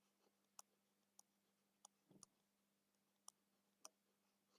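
Near silence with a faint steady hum and a few faint, irregular clicks.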